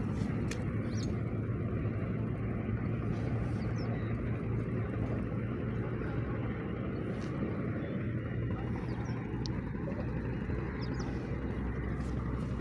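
A steady low motor hum under a continuous rushing noise, with a few faint clicks.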